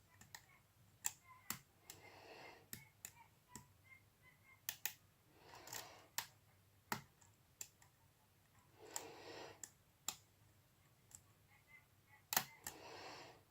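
A lock pick and tension wrench working the pins of a Medeco six-pin mortice lock cylinder: faint, sharp clicks at irregular intervals. Four soft hissing sounds of about a second each come between them.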